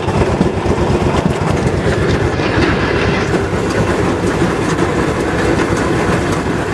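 Railroad motorcar running along the track: its engine's rapid, even exhaust beat with the wheels clacking over the rail joints.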